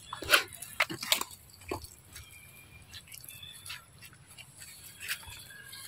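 Macaques eating a mango and moving over dry leaf litter: several sharp crackles and crunches in the first two seconds, a few more about five seconds in, quieter in between.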